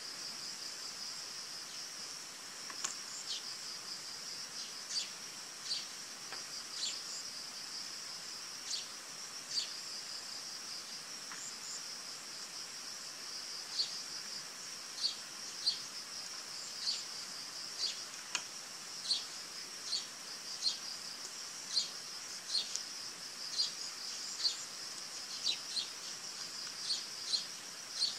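A steady, high-pitched insect drone with short, sharp bird chirps on top. The chirps come every second or so in the second half.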